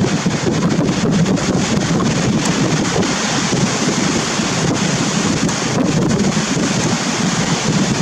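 Wind buffeting the microphone over the rush of rough surf, a steady, unbroken noise with no letup.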